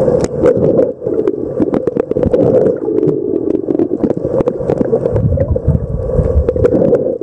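Muffled underwater sound picked up by a camera below the surface: a steady rush of water, with many small clicks and crackles, and a low rumble coming in about five seconds in.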